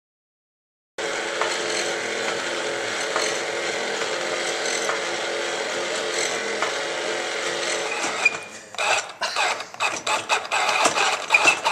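Wooden automata mechanisms running: a steady whirring starts about a second in, and from about eight seconds in gives way to irregular wooden clicking and clattering of cams and levers.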